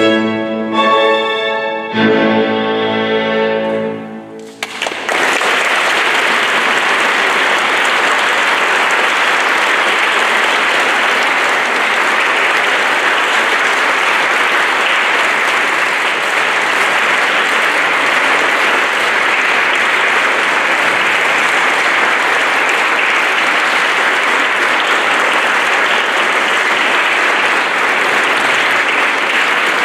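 An instrumental piece ends on its final held chords about four seconds in, and the audience then applauds steadily.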